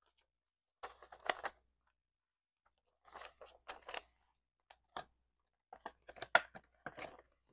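Paper banknotes rustling and crinkling as a stack of bills is handled and counted, in several short bursts with a few sharper snaps, the loudest near the end.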